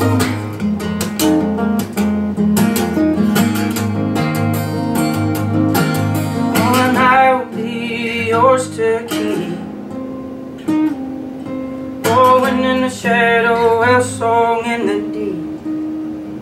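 Steel-string acoustic guitar played with rhythmic, percussive strumming and picking. A singing voice comes in over it for two short phrases, about 7 and 13 seconds in.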